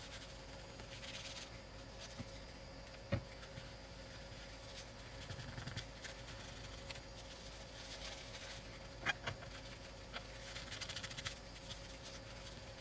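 Faint, intermittent scratching and rubbing from hand work on the iPad's frame, with two small sharp clicks, as adhesive residue is worked off.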